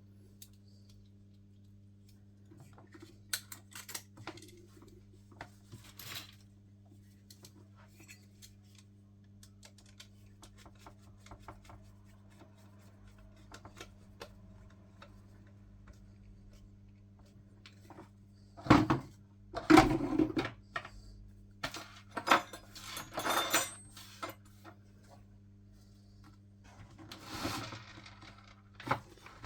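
Small hard parts, such as metal soldering tips and nozzles, clicking and clinking as they are handled, with louder clatters about two-thirds of the way through. A steady low hum runs underneath.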